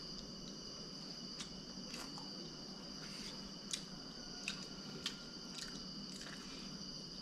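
Faint chewing and small mouth clicks of someone eating fish curry, a few soft clicks spread over several seconds, over a steady faint high-pitched whine.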